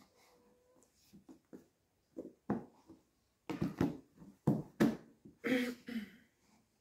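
Plastic Tupperware bowl lid being handled and pressed shut: a run of short plastic knocks and clicks, sparse at first and then louder and closer together in the second half.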